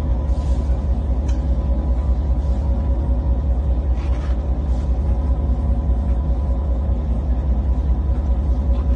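Boat engine running steadily with a deep low rumble and a faint steady hum above it.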